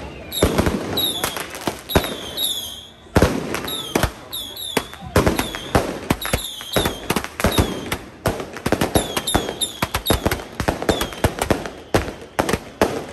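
Strings of firecrackers going off in dense, irregular bangs and crackles. Short high chirps that fall in pitch recur through the banging.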